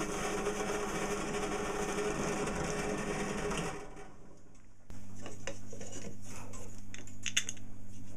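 A small motor-driven machine running steadily, cutting off suddenly a little under four seconds in. After a short lull, a low steady hum with scattered light clicks and knocks of small parts being handled.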